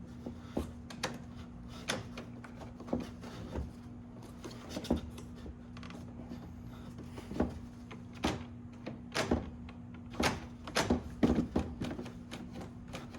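Irregular plastic clicks and knocks of car door wiring connectors and clips being handled and snapped together, busiest in the last few seconds, over a steady low hum.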